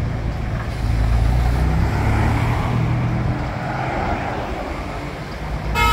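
Vintage London bus engine running under load, its low rumble growing louder about a second in and then easing off. A horn toots right at the end.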